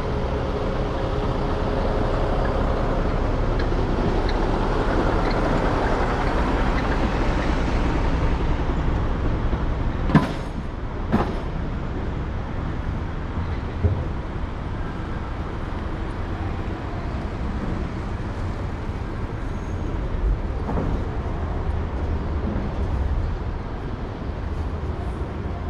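Street ambience: a motor vehicle passing during the first several seconds, then two sharp clicks about a second apart near the middle, over a steady low rumble.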